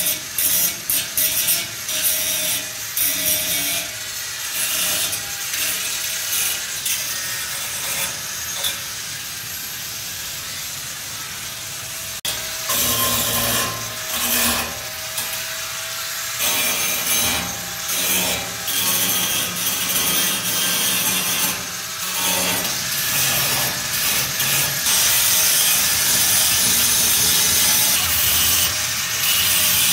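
Uneven rubbing and scraping strokes of tool work on a surface, settling into a steadier hiss near the end.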